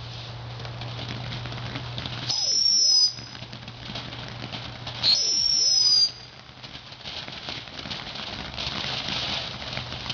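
Two whistling fireworks go off about three seconds apart, each giving a shrill, high whistle of about a second whose two tones slide past each other in pitch, then cut off suddenly.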